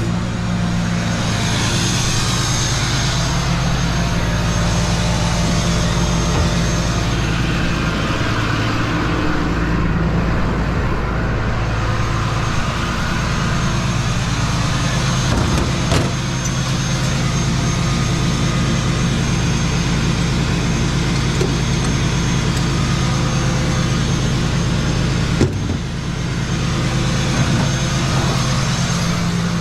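Motor vehicle engine running steadily with a low drone and road noise, holding even for the whole stretch; there is a single knock about sixteen seconds in.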